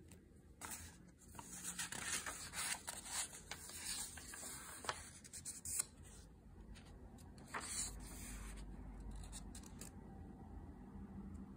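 Paper pages of an Amazon Basics notebook rustling as they are handled and turned by hand, with small clicks, mostly in the first six seconds and once more near eight seconds, quieter toward the end.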